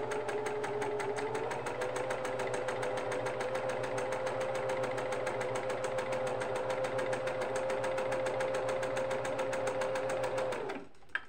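Electric sewing machine stitching a seam at an even speed, run with light pressure on the foot pedal: a steady motor hum with rapid, regular needle ticking. It picks up slightly about a second and a half in and stops near the end, followed by a few clicks.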